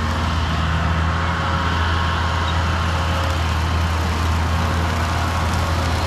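Bobcat skid steer's engine running steadily while driving a 72-inch EZ Mow brush cutter attachment: a steady low hum with fainter, higher steady tones above it.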